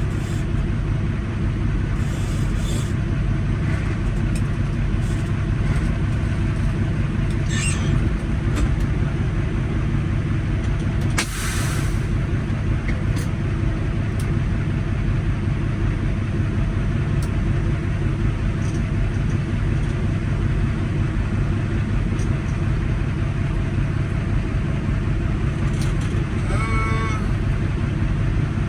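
Semi-truck diesel engine running steadily, a low drone heard from inside the cab, with a short hiss about eleven seconds in.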